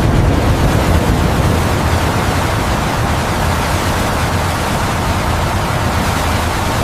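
Loud, steady rushing noise with a deep rumble underneath, spread evenly from low to high pitch; it cuts off abruptly at the end.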